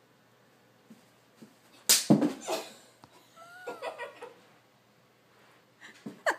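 A girl falling onto a carpeted floor: a loud thud about two seconds in, then a few short pitched vocal sounds. A run of quick short sounds comes near the end.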